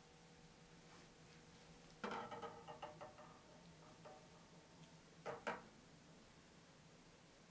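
Kitchenware clinking over faint room hum. About two seconds in, a glass bowl knocks against a stainless steel saucepan and rings briefly. A little past five seconds, a spatula clicks twice against the glass bowl.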